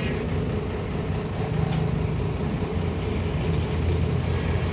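An engine running steadily, a low even drone, with one faint click about a second and a half in.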